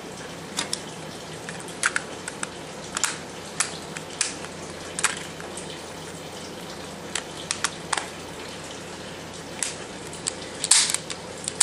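Scattered light clicks and knocks from handling the freshly reassembled Daisy Powerline 15XT CO2 BB pistol, its parts tapping and clicking irregularly, over a steady background hiss.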